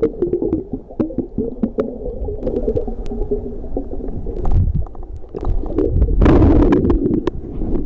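Muffled underwater sound from a camera submerged in the sea: low water rumbling and gurgling against the housing, dotted with small clicks, and a louder rush of water about six seconds in as the sand dollar is handled.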